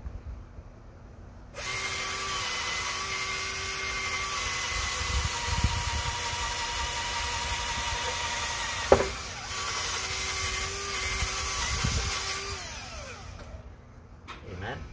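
Power drill running with a long bit boring through a wooden fence post: a steady whine starts about a second and a half in and stops shortly before the end. There is one sharp knock about nine seconds in.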